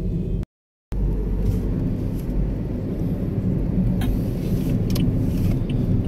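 Steady low rumble of a car's engine and road noise heard from inside the cabin while driving. The sound cuts out completely for about half a second near the start.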